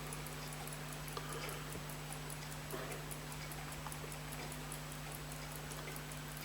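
Faint, rapid, evenly spaced ticking of a clock or watch, over a steady low hum.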